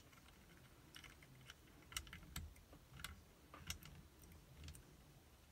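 Faint, irregular small metallic clicks of a pick working the levers of a safety deposit box lever lock held under tension from the key, feeling for the binding levers.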